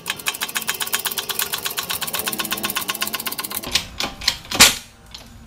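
Rapid, even mechanical clicking, about ten clicks a second, for about three and a half seconds, then a few knocks and one loud metal clunk near the end.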